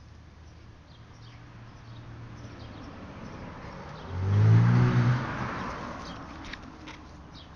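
A motor vehicle passing by: engine and road noise build up, peak loudly about four and a half seconds in, then fade away.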